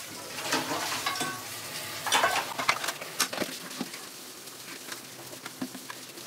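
Dishes being washed by hand at a kitchen sink: running tap water hissing, with clinks and knocks of pots, pans and plates, clattering most about two to three seconds in.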